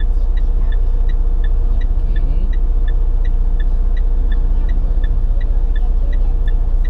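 Car idling with a steady low hum inside the cabin, while the turn-signal indicator ticks evenly about three times a second.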